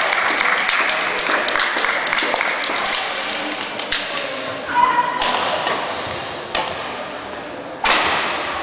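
Badminton rally: sharp racket strikes on the shuttlecock, the loudest a little before the end, with smaller taps and thuds of players' feet on the court, over voices in the hall.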